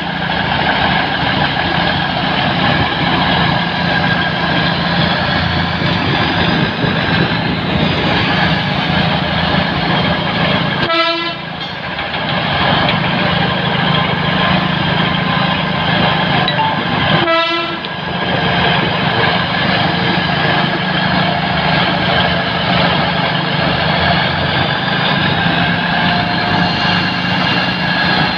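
Steady running noise of the Batara Kresna diesel railbus moving along a street, heard while keeping pace beside it: a low engine drone under a constant rushing noise. The sound dips briefly twice, about 11 and 17 seconds in.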